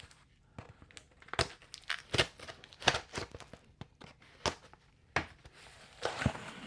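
A packaging box opened by hand: tearing and crinkling of the packaging with a string of short, sharp rustles and clicks.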